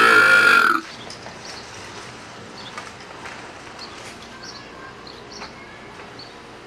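A recorded belch played loud through computer speakers, one long burp that cuts off sharply under a second in. After it only a quieter steady background with a few faint high chirps.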